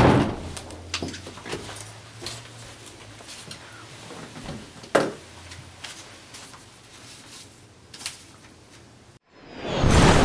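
A door shutting with a thump, then a quiet room with a few faint clicks over a low hum. Near the end, after a moment of dead silence, a loud crash with shattering glass breaks in.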